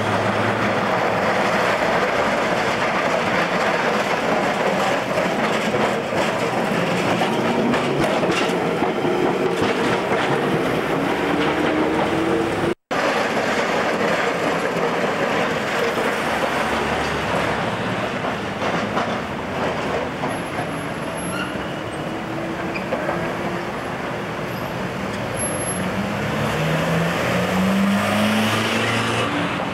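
Street traffic at a tram junction: a W class tram rolls across the intersection while vans and cars pass, with several engine notes rising in pitch as vehicles pull away. The sound cuts out for a split second about a third of the way in.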